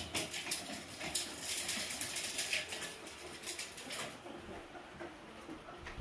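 Polecats scrabbling over corrugated plastic pipes and concrete: a busy patter of quick clicks and scratches for about four seconds, then quieter.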